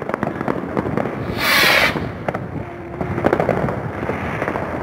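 New Year's Eve fireworks: firecrackers cracking and popping in a dense, irregular crackle, with a loud hissing burst lasting about half a second around a second and a half in.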